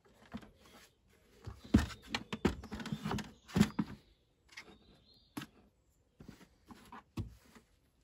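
Plastic engine top cover being prised off its mounting points and lifted away by hand: a cluster of clicks, knocks and plastic rattles, loudest about two to four seconds in, then a few single knocks.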